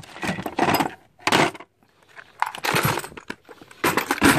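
Metal hand tools clinking and clattering against each other and the plastic tray as a hand rummages through a toolbox, in irregular bursts with short pauses.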